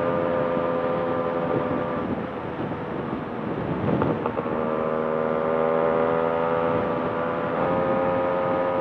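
Yamaha RX two-stroke motorcycle engine running at cruising speed, heard from the rider's seat. The note eases off about two seconds in, then picks up again after about four seconds and climbs slowly in pitch.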